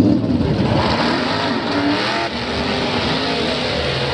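Two drag-racing cars' engines launching from the start line at full throttle, the engine note rising as they pull away.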